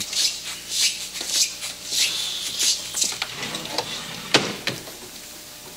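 Handling sounds at a kitchen counter: repeated short scratchy rubbing strokes about twice a second, then a few sharp knocks, the loudest about four and a half seconds in.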